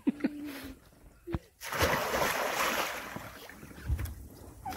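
Water splashing and sloshing in an above-ground frame pool as a man plunges under the surface, a rush of churning water starting about a second and a half in.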